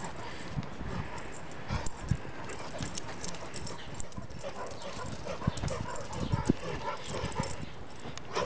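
A Rottweiler running and playing on grass: irregular dull thuds of its footfalls and rustling, with scattered light clicks.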